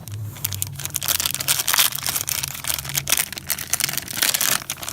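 Blind bag packet being torn open and crinkled by hand: dense crackling and rustling with many sharp crinkles.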